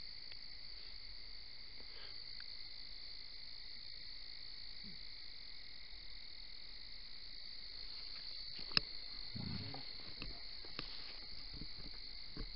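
Steady night chorus of calling insects and frogs, a constant high-pitched trilling in two pitches. About nine seconds in come a single sharp click and a soft low thump.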